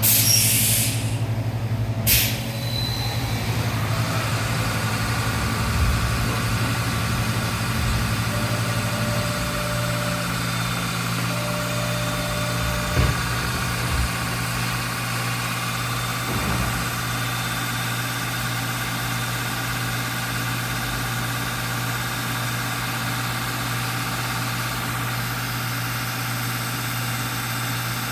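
Fadal VMC4020 HT CNC vertical machining center milling a metal part: a steady low hum with a high whine that comes in a few seconds in. A couple of short knocks partway through.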